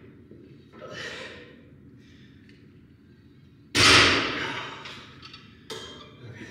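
A sudden loud thump a little past halfway, fading over about a second, with a softer knock shortly before the end.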